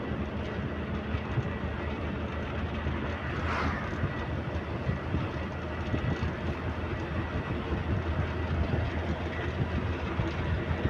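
Steady low rumble and rattle of a moving vehicle heard from inside, with a brief whoosh about three and a half seconds in.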